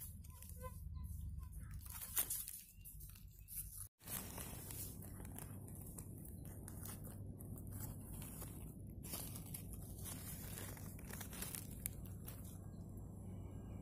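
Dry leaf litter and twigs rustling and crackling in irregular short snaps as fingers dig around and pull a wild mushroom from the forest floor, over a low steady rumble. The sound drops out briefly about four seconds in.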